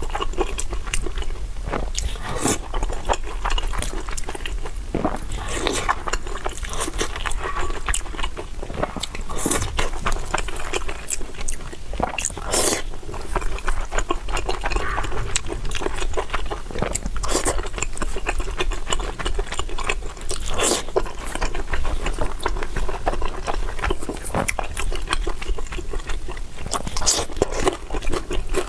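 Close-miked eating: steady chewing and wet mouth sounds with frequent sharp clicks and some scraping.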